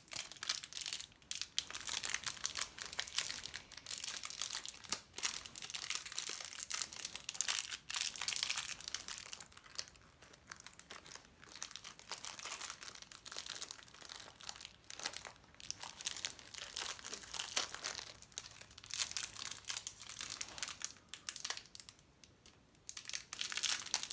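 Clear plastic toy bag crinkling and rustling as it is handled, in irregular crackly spells with a couple of brief lulls.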